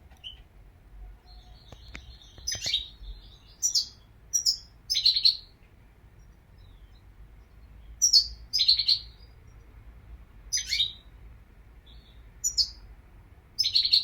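European goldfinch chirping and twittering in short bright bursts, with pauses of a second or more between them.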